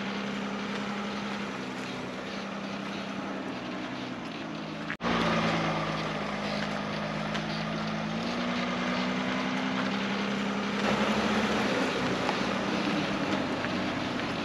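Quadcopter camera drone's propellers humming steadily, the pitch of their tones stepping up and down every few seconds as it manoeuvres, with wind noise on the microphone. The sound cuts out briefly about five seconds in.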